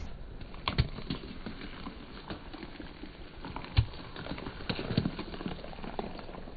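Car tyre rolling slowly over gravelly asphalt and two red bell peppers, crunching grit and squashing the peppers. It comes as a scattering of sharp cracks and pops, the loudest about four seconds in.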